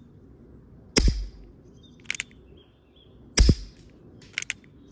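CO2 pellet revolver firing 16-grain slugs: two sharp shots about two and a half seconds apart, the first about a second in, each followed about a second later by a quick pair of clicks.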